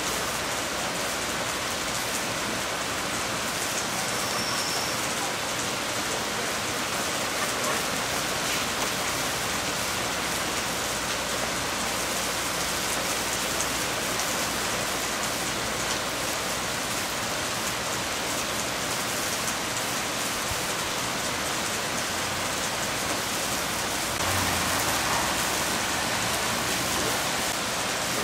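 Heavy hurricane rain pouring down steadily, growing a little louder near the end.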